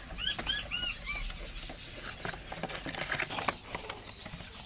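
Cardboard bird carrier rustling and scraping as a hand opens its flaps and reaches inside, with short clicks and knocks strongest midway through. A bird gives a quick run of four chirps in the first second, and faint high-pitched bird chirping goes on throughout.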